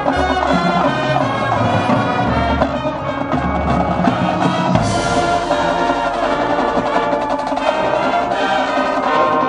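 High school marching band playing its field show, brass and percussion together. About halfway through, the deep low notes drop out and a bright, sudden wash of sound comes in.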